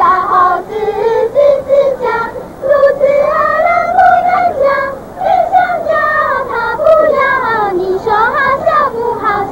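A group of young children singing a song together in unison, one melody line held and gliding up and down.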